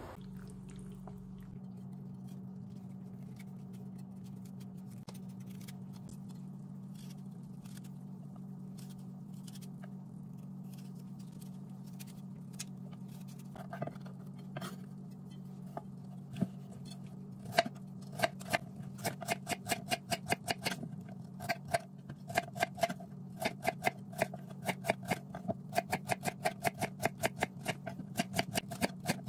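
Chef's knife slicing carrots into rounds on a bamboo cutting board: a few scattered cuts at first, then from about halfway a steady run of crisp chops, about two or three a second. A steady low hum runs underneath.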